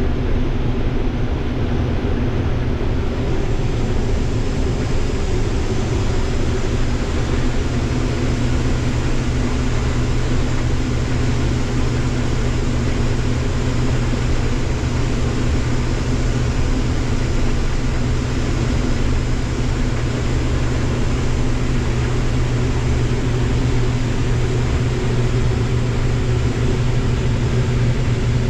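Large diesel harvest machine running steadily under load, a constant low hum with an even rush of noise over it.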